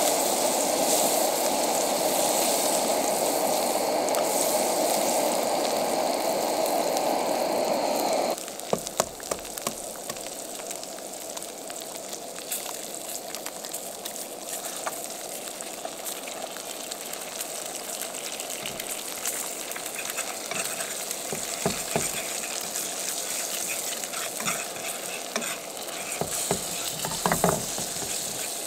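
Sausages and eggs frying in a pan on a canister gas camp stove, sizzling steadily, with taps and scrapes of a fork against the pan, more of them near the end as the eggs are scrambled. A louder steady rushing noise covers the first eight seconds and stops abruptly.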